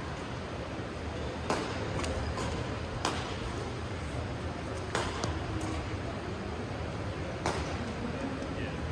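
Badminton rally: shuttlecock struck by rackets in sharp smacks about every two seconds, four strong hits with fainter knocks between them, over the steady noise of a large sports hall.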